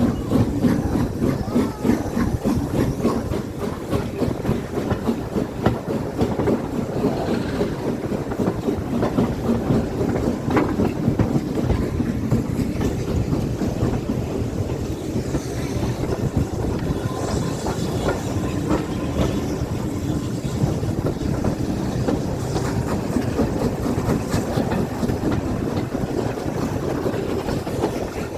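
A train running along the track: steady noise of steel wheels on the rails, continuous throughout.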